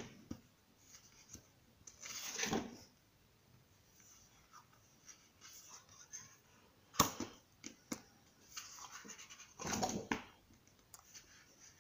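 Pages of a large paperback colouring book being turned and handled: soft paper swishes and rustles, with a sharp click about seven seconds in.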